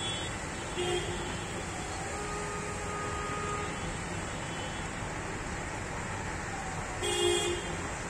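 Vehicle horns tooting on a flooded street: a short toot about a second in and a louder one near the end, with a fainter held tone in between, over a steady hiss of traffic and rain.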